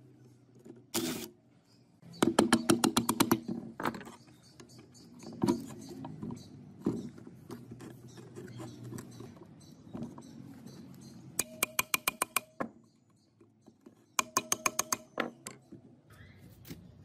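Three bursts of rapid clicking, about ten clicks a second, each lasting about a second, with a few single knocks over a low steady noise in between.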